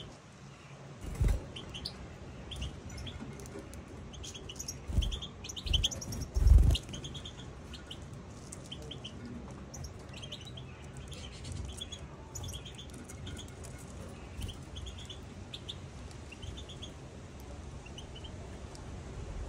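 European goldfinches twittering together in a run of short, high chirps and trills. A few low thumps stand out in the first seven seconds, the loudest about six and a half seconds in.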